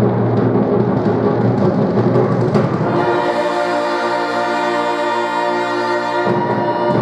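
Live band music with heavy drumming, then a long held chord from about three seconds in that breaks off a little after six seconds.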